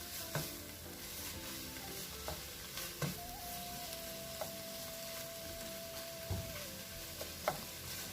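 Cuttlefish and vegetables sizzling as they sauté in a pan, with a few sharp clicks of a utensil stirring against it. A faint steady tone sounds for a few seconds in the middle.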